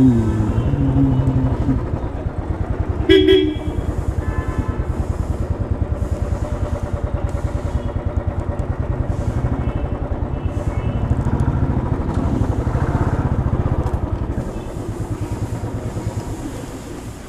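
Royal Enfield Classic 350's single-cylinder engine running with an even, rapid thump. A vehicle horn honks loudly about three seconds in. The engine grows quieter for the last few seconds.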